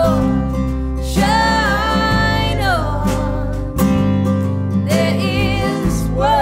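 A woman singing a folk song with strummed acoustic guitar and low sustained notes underneath. About a second in she holds a long note that slides down near its end.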